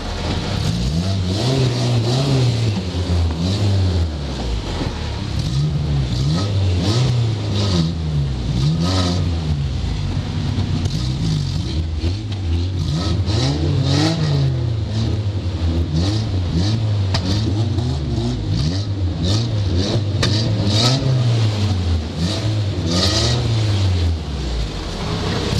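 Stock car engine revving up and falling back over and over as the car accelerates and lifts, heard from inside the car, with frequent rattling knocks from the body.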